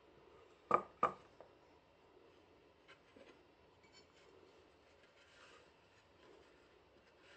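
Two sharp knocks a quarter second apart about a second in, then soft rustling and small ticks as a cloth wrapping is unfolded around a pot inside a paulownia-wood box.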